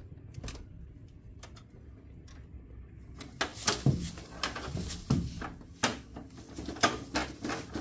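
A blue-and-gold macaw scrambles and flaps on the plastic casing of a wall air conditioner. Faint clicks come first, then from about three seconds in a run of knocks, scrapes and rustling wing flaps.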